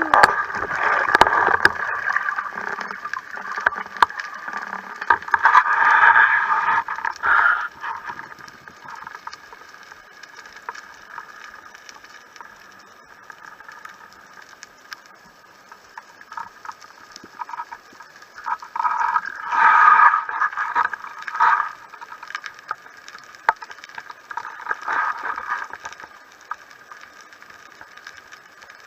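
Muffled underwater noise with many scattered clicks and crackles, swelling louder a few times, around six and twenty seconds in.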